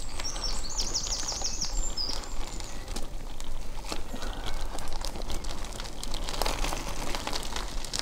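Bicycle rolling over a dry dirt and gravel track, with its tyres on the loose surface and frequent small clicks and rattles as it bumps along. A bird trills rapidly and high up during the first two seconds.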